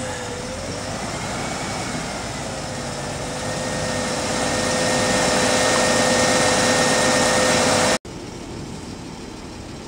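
Methane-fuelled KAMAZ truck engine idling, with a steady whine over the engine noise that wavers at first and then holds. It grows louder a few seconds in and drops suddenly to a quieter engine hum near the end.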